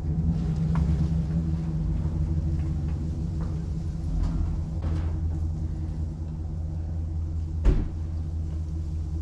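Truck engine idling steadily while hitched to a stock trailer, with light rattles and one sharp metallic clank about three-quarters of the way through.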